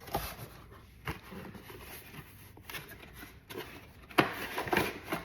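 Handling noises of packaging and parts being moved: scattered light knocks and rustles, busier and louder about four seconds in.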